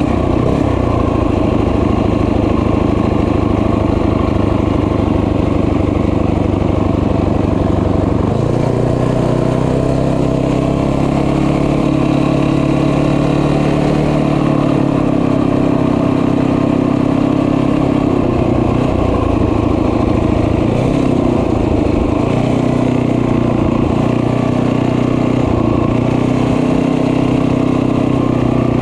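Small motorbike engine running steadily while being ridden, its pitch shifting about 8 seconds in and again around two-thirds of the way through as the throttle changes.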